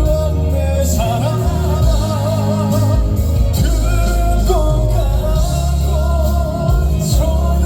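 A male singer singing a ballad-style trot song live with vibrato over an amplified band backing with a heavy bass line.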